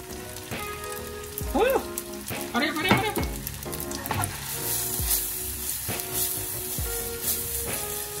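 Beaten egg poured onto linguine and bacon in a hot frying pan, sizzling steadily as the pan is stirred and tossed. The pan is hot enough to fry the egg, so it sets into strands instead of forming a creamy carbonara sauce. Background music plays under it.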